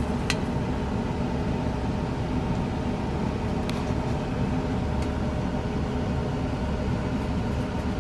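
Steady low mechanical hum, such as a running engine or air-conditioning unit makes, with two faint clicks: one just after the start and one near the middle.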